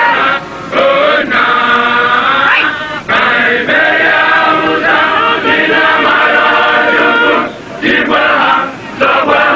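A group of men singing together in long phrases broken by brief pauses.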